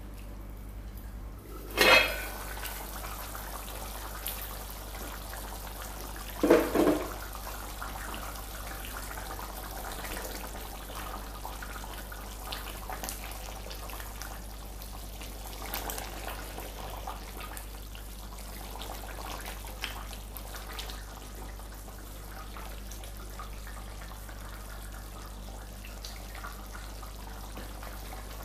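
Wooden spoon stirring a thick palm-oil stew of meat and fish in a metal pot, with wet sloshing and small scrapes and clicks against the pot over a steady low hum. There is one louder knock about two seconds in and a quick double knock about six and a half seconds in.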